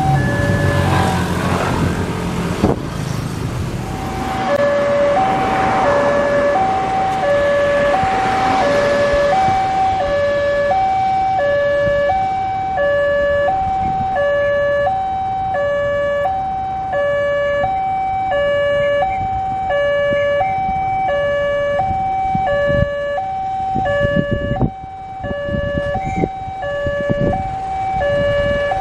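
Railway level-crossing warning alarm sounding two alternating electronic tones, high then low, each about two-thirds of a second, repeating evenly. It signals that a train is coming and the barriers are closing. Motorcycle traffic passes over the crossing in the first few seconds.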